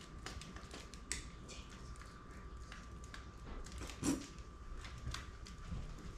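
Plastic squeeze bottle of barbecue sauce being squeezed over ribs: faint squelches and small clicks, with one louder short sound about four seconds in. A faint steady high tone hums underneath.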